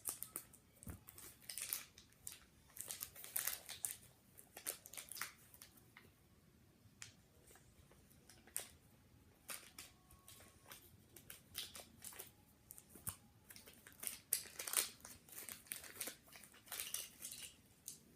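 Packaging being opened by hand: irregular crinkling and tearing in short bursts with brief pauses between.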